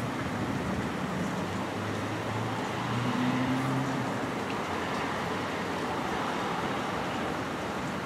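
Steady hiss of rain and traffic on wet roads during a thunderstorm, with a vehicle's engine hum swelling about three seconds in and fading out about a second later.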